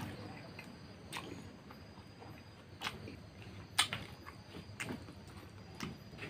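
Quiet eating sounds: scattered short clicks from chewing and lip smacks, with fingers scraping rice grains across a banana leaf.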